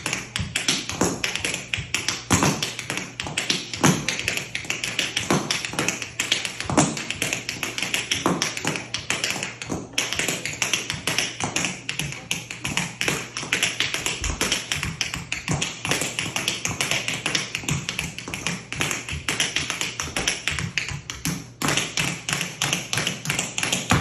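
Tap shoes striking a wooden floor in a fast, continuous tap routine, with a brief break about ten seconds in.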